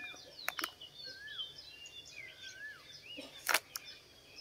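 Small birds chirping and twittering throughout, one repeating a short rising-and-falling whistle three times. Sharp clicks of a clear plastic cake box being handled, once about half a second in and louder twice about three and a half seconds in.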